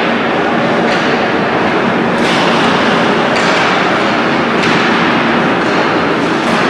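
Ice hockey play in a rink: a steady wash of skates on ice and arena noise, broken by about five sharp knocks of sticks, puck or boards, over a faint steady low hum.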